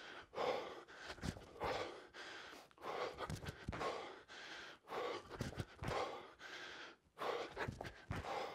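A man breathing hard during tuck jumps, in quick repeated puffs and gasps, with a few soft thuds as he lands on the rubber gym floor.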